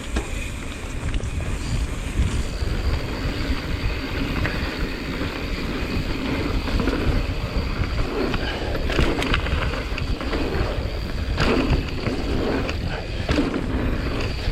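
Mountain bike rolling fast over a dirt trail: a steady tyre rumble with wind on the microphone. Several sharp knocks and rattles come in the second half, from the bike over rough ground or landings.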